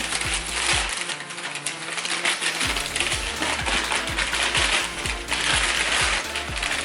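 Background music with a steady beat of about two thumps a second, over the clinking and rustling of mixer accessories and their packaging being handled.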